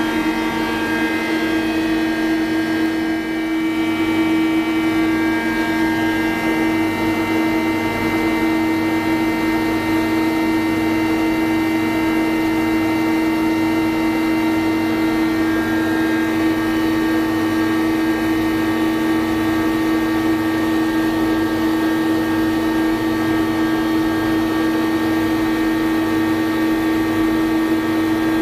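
Spinner TC-65 CNC lathe running: a steady whine made of several held tones from its spindle and drives, with some of the higher tones changing a few seconds in and again about halfway through.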